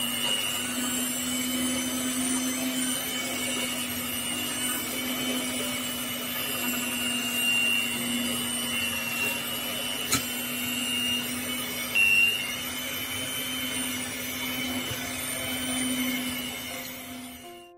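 Electric hand mixer running steadily, its beaters working thick steamed pandan mochi dough in a steel pot, with a constant motor hum and whine. There is a sharp click about ten seconds in and a brief louder moment near twelve seconds, and the motor stops just before the end.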